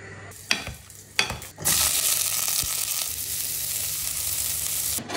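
Two sharp knocks about half a second and a second in, then asparagus spears sizzling steadily in a frying pan with butter, stopping just before the end.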